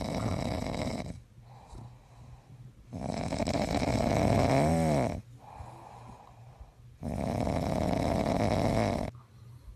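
A sleeping pit bull snoring loudly: three long snores about four seconds apart with quieter breaths between, the middle one breaking into a wavering whistle near its end.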